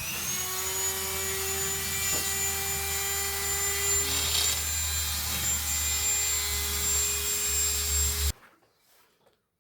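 Dremel rotary tool spinning up with a rising whine and running at steady speed while it grinds a bevel onto the edges of hard plastic-like insert pieces, then switched off and stopping abruptly about eight seconds in.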